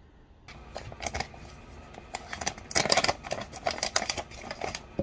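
Seasoning containers and packets being handled for a spice refill: a quick run of clicks, rattles and rustles that starts about half a second in and is busiest around three seconds in.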